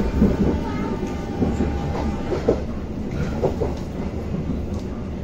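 Passenger train running along the track: a steady rumble of the wheels on the rails, heard from inside a coach.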